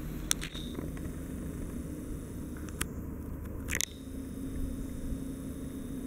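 Low, steady rumble of an approaching train with a faint steady hum, broken by three sharp clicks, the loudest just after the start, the others near the middle.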